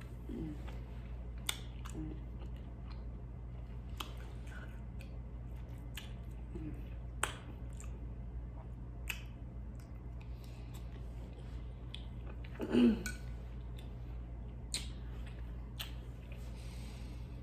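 Close-miked eating: chewing with scattered sharp mouth clicks, and one louder, brief throat sound about thirteen seconds in.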